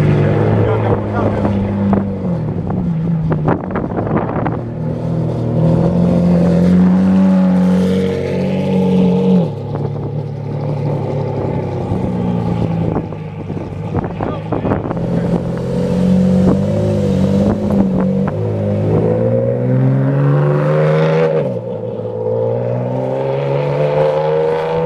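Ferrari Enzo's V12 running through a full titanium aftermarket exhaust as the car pulls away at low speed, its pitch stepping up and down with the throttle. Near the end it rises in two long climbs as the car accelerates.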